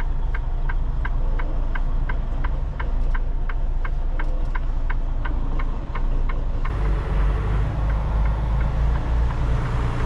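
Semi truck's diesel engine running under a steady ticking, about two and a half ticks a second, like a turn-signal flasher in the cab. About seven seconds in the ticking stops and the engine comes up under load as the truck pulls away.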